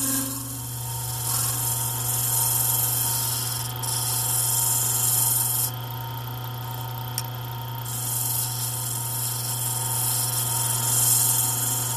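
Lathe motor humming steadily while a small round-nose scraper cuts inside the spinning horn cup, making a hissing scrape as it cuts the ramp for the bottom piece to seat in. The scraping stops for about two seconds near the middle, then resumes.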